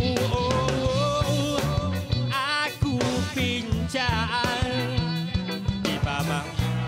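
Background music: a pop song with a steady drum beat and a melodic line.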